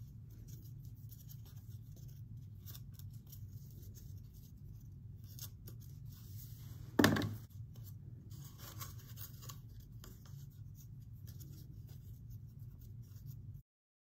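Light rustling and scraping of yarn and cardboard tubes being handled as yarn is threaded through holes and tied, over a steady low hum. One louder short scrape comes about seven seconds in, and the sound cuts off abruptly just before the end.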